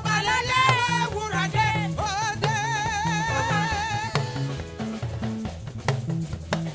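Live praise band playing a Yoruba worship song: a singer holds notes with a wide vibrato over bass guitar and drum kit. The voice drops out about four seconds in, leaving the bass and drums playing on.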